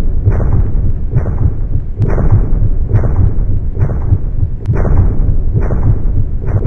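Loud, deep rumbling pulse from a horror-film soundtrack, repeating evenly a little faster than once a second.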